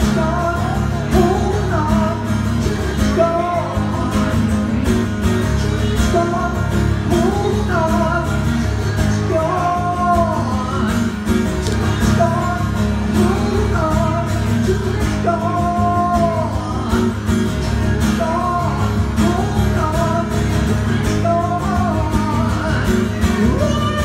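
Twelve-string acoustic guitar strummed steadily, with a singer's voice carrying a gliding, wavering melody line over it, heard through a small PA.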